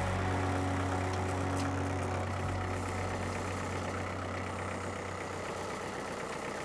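Heavy machine's engine idling steadily. Its low hum eases off in a couple of steps, once around the middle and again near the end.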